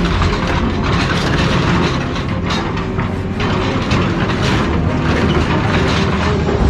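Heavy scrap-handling machine working car bodies: a steady low engine drone under repeated metal knocks, scraping and crunching.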